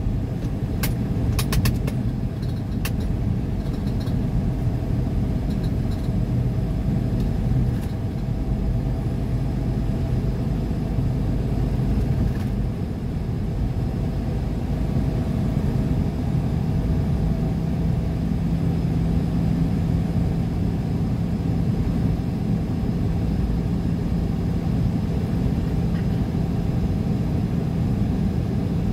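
Road noise of a moving car heard from inside the cabin: a steady low rumble of tyres and engine. There are a few sharp clicks in the first three seconds, and a low hum steps up in pitch a little past halfway.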